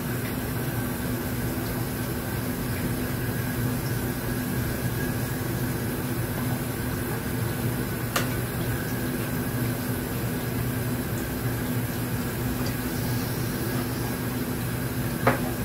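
Cold tap water running steadily onto the metal lid of a pressure cooker in a sink, cooling it so the pressure drops, with a steady low hum underneath. Two brief clicks, one about halfway through and one near the end.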